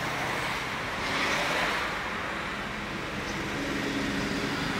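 Road traffic noise, with a vehicle swelling past about a second in.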